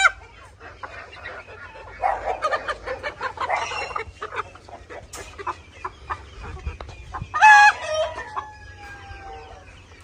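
Caged chickens clucking and squawking while they are handled, with small clicks and rattles of the wire cages. About seven and a half seconds in, a rooster crows, its loudest call trailing off into a long, slightly falling note.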